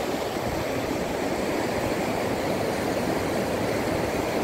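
Swollen river rushing steadily over rocks in a strong, fast current.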